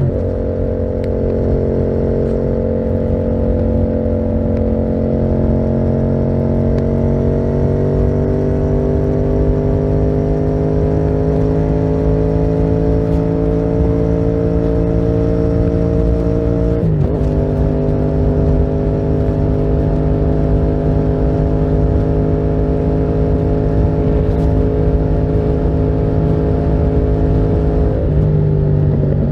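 Yamaha MT-07's parallel-twin engine through a Termignoni exhaust, running under a steady light load. Its pitch climbs slowly, drops abruptly about two-thirds of the way through, then holds and rises again.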